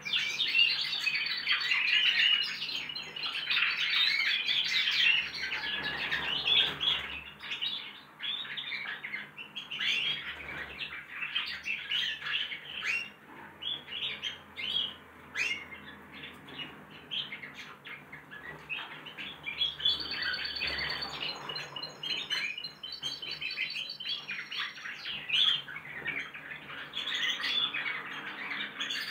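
Several young finches practising their song together: a dense, overlapping chatter of twittering warbles and chirps, loudest in the first few seconds and again near the end. A faint steady low hum runs underneath.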